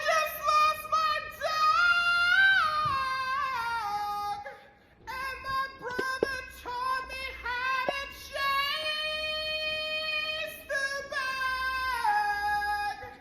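A high-pitched voice singing a melody in held notes that step up and down, in two phrases with a short break about five seconds in. A couple of sharp clicks come soon after the break.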